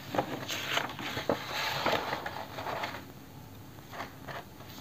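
A sheet of paper rustling as a page is turned over and laid flat, with a couple of light knocks in the rustle; it quietens about three seconds in.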